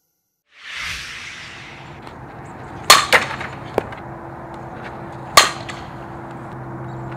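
Softball bat hitting a ball twice: two sharp cracks about two and a half seconds apart, the first followed by a couple of lighter knocks. A faint steady hum runs under the second half.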